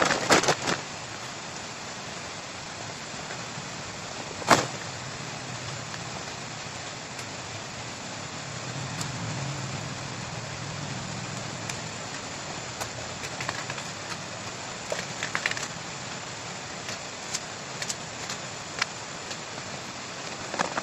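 Bamboo shoots and dry bamboo leaf litter being handled: crackling and rustling, with one sharp snap about four and a half seconds in and scattered small crackles later, over a steady background hiss. A faint low drone rises and fades around the middle.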